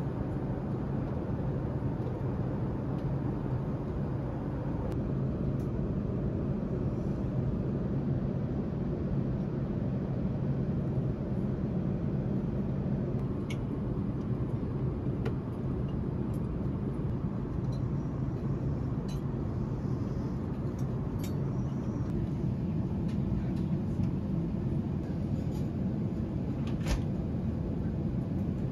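Airliner cabin noise in flight: a steady low rumble and hiss, with a few faint clicks scattered through it.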